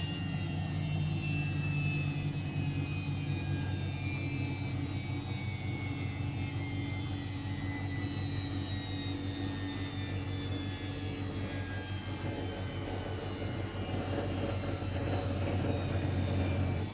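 Luxor WM 1042 washing machine on an unbalanced spin: a steady low hum with a motor whine that slowly falls in pitch. Near the end the noise builds a little, then drops off sharply.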